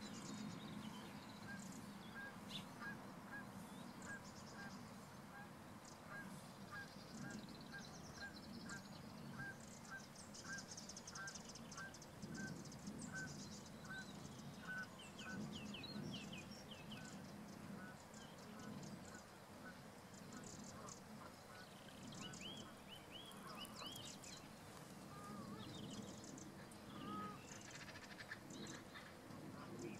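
Faint calls of distant birds: a long run of short, evenly repeated calls, about two a second, through roughly the first half, then scattered higher chirps and twitters.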